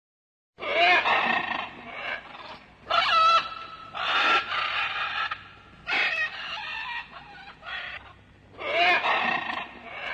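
Animal calls, starting suddenly about half a second in: a series of loud pitched cries, each with a wavering, bending pitch, repeating every second or two, with quieter calls between them.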